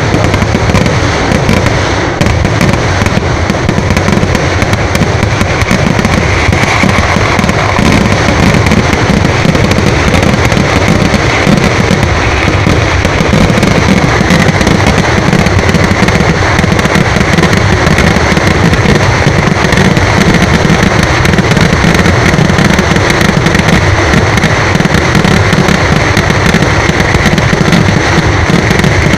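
A fireworks barrage: explosions going off in rapid, unbroken succession, so that the bangs run together into one loud, continuous din.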